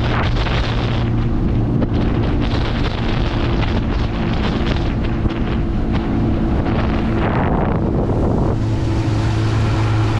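Boat engine running steadily under way, with wind buffeting the microphone and a constant rush of wind and water over the engine.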